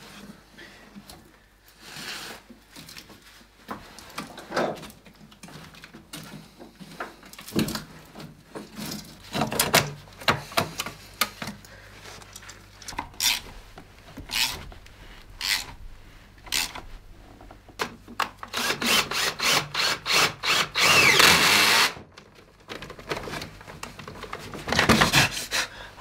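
Turbocharger being refitted to an engine: scattered clinks, knocks and scraping of metal parts and hand tools. A cordless power tool then runs in rattling bursts for a few seconds about three-quarters of the way through, and again briefly near the end.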